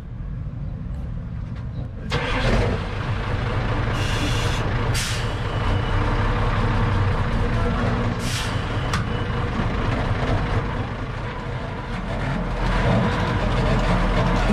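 Truck engine and drivetrain running as the truck drives, heard from under the chassis beside the propeller shaft and rear axle. The rumble grows louder about two seconds in. Short bursts of hissing air come around four seconds in and again around eight seconds in.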